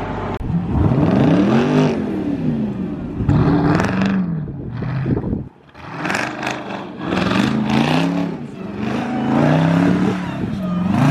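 Jeep's engine revving again and again, its pitch rising and falling with each push of the throttle.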